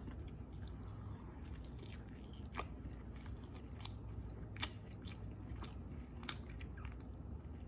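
A person chewing a mouthful of vegetable breakfast burrito close to the microphone, with irregular soft, wet mouth clicks.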